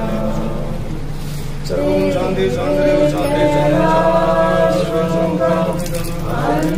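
Voices chanting a Hindu devotional mantra in long held notes. The chant is softer for the first second or so, then swells and runs on with a short dip near the end.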